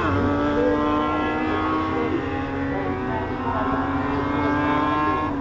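Engines of several small RX150 rallycross buggies racing at high revs, their notes overlapping and shifting in pitch. One car's note drops sharply as it passes right at the start.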